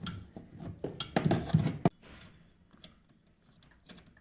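Metal clinks and scraping as a spanner and pliers turn the nut on the bolt holding a washing machine's gearbox pulley, with a sharp click near two seconds in, then only faint ticks.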